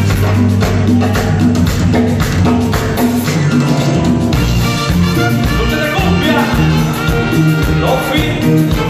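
Live cumbia band playing: electric bass, drums, trumpet and saxophone driving a steady dance rhythm.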